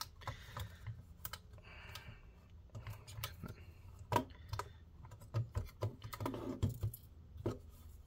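Plastic shell of a Maxtor OneTouch III external hard drive enclosure clicking and creaking in irregular taps as hands flex and pull at it, its snap-fit clips still holding. A short scraping rustle comes about two seconds in.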